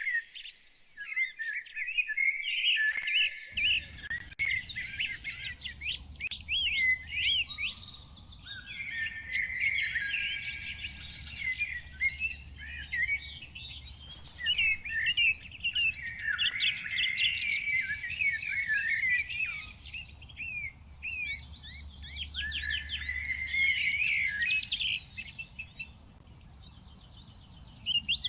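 Chorus of several songbirds singing and chirping at once, with dense overlapping quick notes and short whistled glides. It thins out near the end. A steady low rumble runs underneath from a few seconds in.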